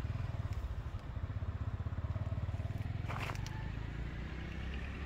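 Motorbike engine running with a steady low, pulsing rumble, with a brief rustle about three seconds in.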